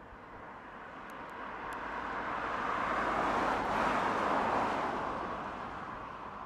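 A road vehicle passing by, its tyre and engine noise swelling to a peak about three to four seconds in and then fading away.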